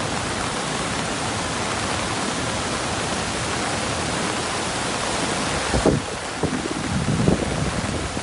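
Heavy rain and fast-flowing floodwater rushing across a flooded parking lot: a steady, loud rushing hiss, with a few louder rumbling surges in the last couple of seconds.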